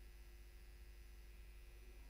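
Near silence: faint steady hum of the recording's room tone.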